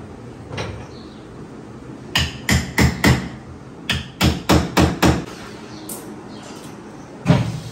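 Hammer blows on cabinet woodwork during fitting of kitchen cabinet doors. There is a run of four quick strikes, about three a second, then after a short pause a run of five, with a few single taps around them and one loud blow near the end.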